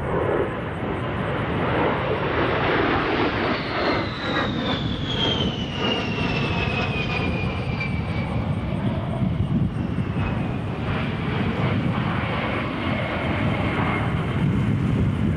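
A-10 Thunderbolt II's twin TF34 turbofan engines in flight: a steady rush of jet noise with a high whine that slides slowly down in pitch from about four seconds in.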